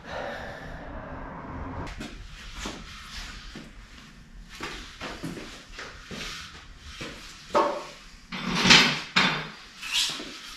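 Knocks and clunks of wooden boards being handled and set down, loudest in the last few seconds.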